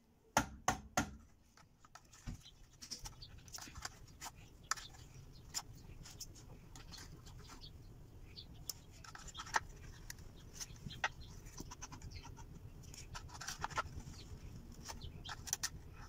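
Plastic washing-machine drain pump being handled and probed with a metal pick to dig out a rag that is clogging it. A few sharp knocks come about half a second in, then scattered clicks and scraping.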